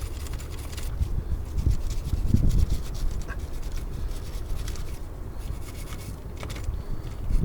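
Wire brush scrubbing the inside of a car battery's terminal clamp in quick scratching strokes, with a few low knocks from handling. The clamps are being cleaned to cure a no-start where the starter only ticks.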